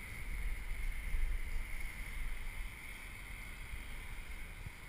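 Wind buffeting a hand-held GoPro's microphone: a low, steady rumble with a fainter steady hiss above it.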